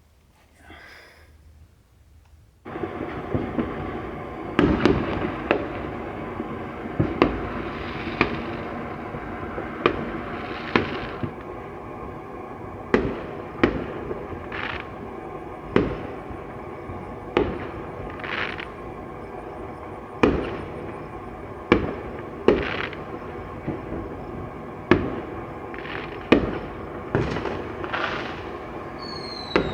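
Fireworks going off: a sudden start about three seconds in, then a steady rumble of noise with a sharp bang roughly every second or so, some followed by a crackling hiss, and a falling whistle right at the end.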